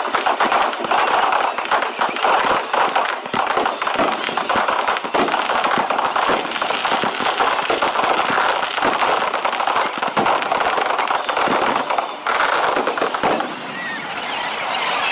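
A dense barrage of aerial firework shells bursting, bangs coming many times a second and overlapping with crackle. The barrage dips briefly after about twelve seconds and thins out near the end.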